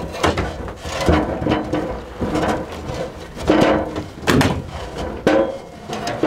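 Irregular knocks and clatters of hard objects being handled, about one or two a second, some with a short ringing tone after them.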